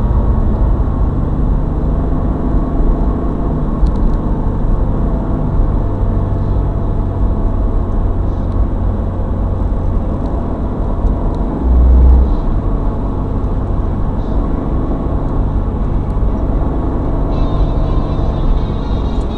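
Toyota 86 engine and tyre noise heard from inside the cabin while driving at steady speed, with one low thump about twelve seconds in. Music comes in near the end.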